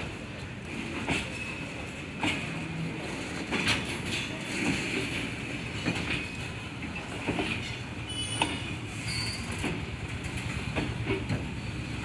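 Freight train of open-top wagons rolling slowly past: a steady low rumble of the wagons, with a sharp clack from the wheels over the rail joints about once a second.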